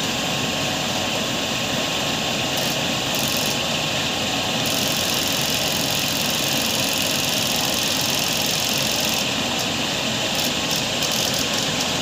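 Converted e-rickshaw motor with an enlarged rotor running steadily and turning a large pulley, making a continuous, even machine noise.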